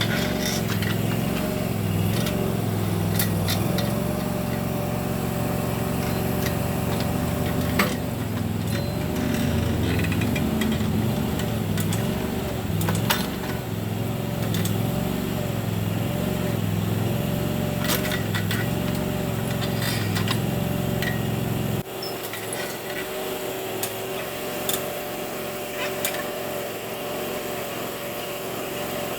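Small Termite backhoe's engine running steadily under digging work, with a wavering whine over the engine hum and scattered sharp knocks and clanks. The low engine hum drops away suddenly about three quarters of the way through.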